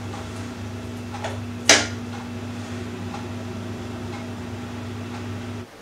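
Electric kettle heating up: a steady hum with faint ticks and crackles, and one sharp click a little under two seconds in. The hum cuts off suddenly near the end.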